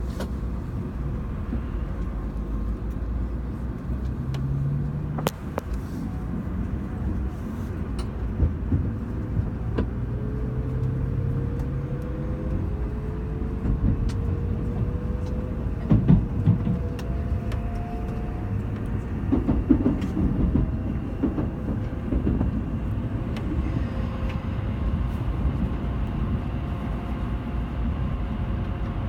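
Shinkansen bullet train running: a steady low rumble with a faint whine that rises slowly in pitch, and a few sharp clicks and knocks.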